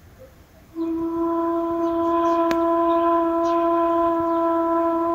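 Background music: one long, steady wind-instrument note with clear overtones, starting about a second in.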